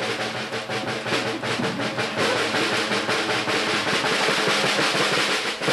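Rapid, continuous drumming, a drum roll, that stops abruptly at the very end.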